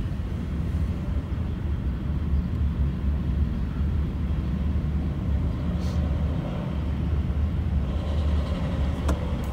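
Steady low rumble inside a stopped car's cabin: the car's idle and a freight train rolling through the grade crossing ahead blend into one continuous drone.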